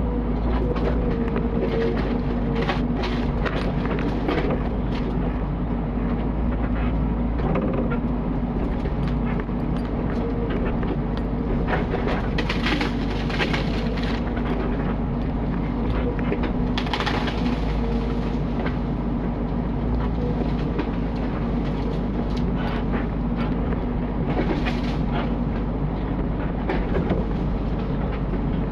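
Mini excavator's diesel engine running steadily under load, with repeated sharp knocks and clatter from the machine working among large logs, heaviest about halfway through and again near the end.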